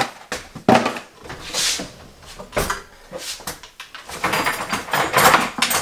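Kitchen drawer pulled open and its contents rummaged through: a string of clattering knocks and clinks, busiest in the second half.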